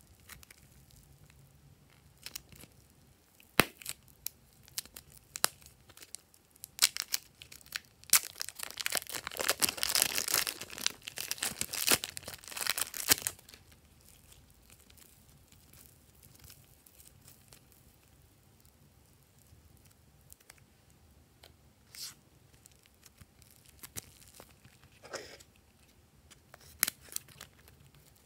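Thin plastic packaging around a pack of purple foam clay, squeezed and peeled open: scattered crackles at first, then a dense crinkling and tearing for about five seconds. Near the end there are a few light clicks as scissors snip into the next plastic-wrapped pack.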